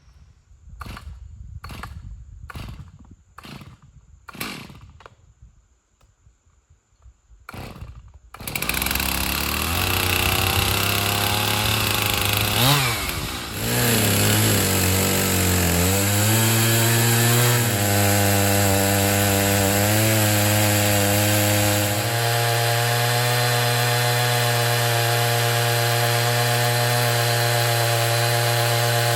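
A run of short sharp strokes, then a chainsaw engine starts about eight seconds in, revs up and down unevenly, and from about two-thirds of the way through holds a steady high speed.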